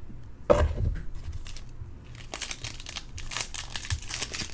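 A foil baseball-card pack wrapper crinkling as it is handled and torn open. A single thump comes about half a second in.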